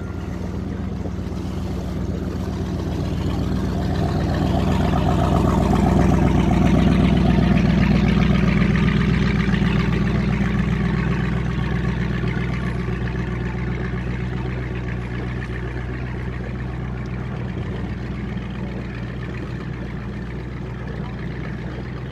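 A sailing yacht's inboard engine running steadily as the boat motors along, a low even hum. Over it a louder rushing noise swells up a few seconds in and fades away again by about halfway through.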